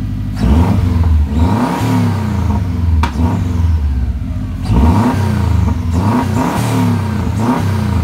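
Subaru turbocharged EJ25 flat-four engine running and being revved repeatedly, its pitch rising and falling with each blip of the throttle.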